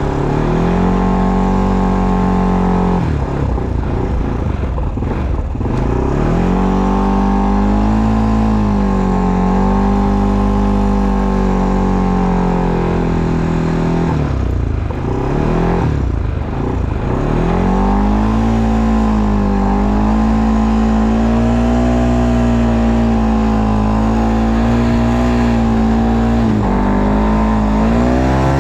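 ATV engine running under throttle. Its pitch drops and climbs back twice as the throttle is eased off and opened again, then holds steady for most of the last ten seconds.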